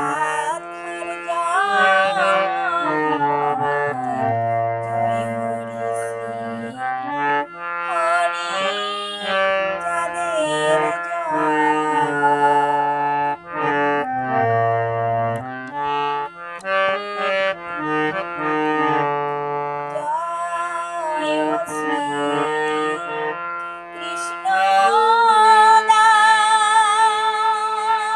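Music of a Bengali Hari sangeet devotional song, with pitched melody lines that shift from note to note over lower sustained tones. About twenty-five seconds in, a louder melody with a wavering pitch comes in.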